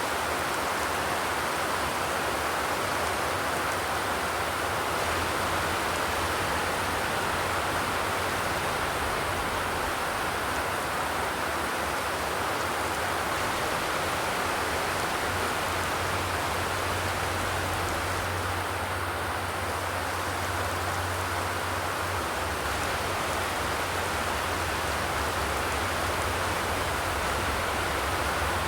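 Steady rain falling, an even hiss of noise with no thunder.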